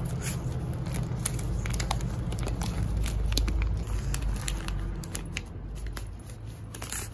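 A Pomeranian crinkling a clear plastic bag with its nose and paws and biting at treat sticks: irregular crackles and small clicks over a low steady hum, thinning out after about five seconds.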